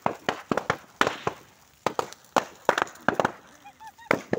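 A bonfire of bamboo poles and straw burning hard, giving off loud, irregular sharp cracks and pops several times a second as the burning poles split and burst.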